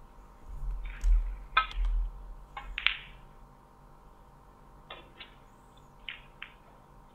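A few sharp clicks and knocks with low thuds in the first three seconds, then a handful of fainter clicks later on, over a faint steady hum.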